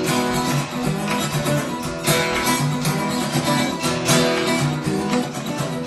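Acoustic guitar strummed in chords, a short instrumental passage in a folk song.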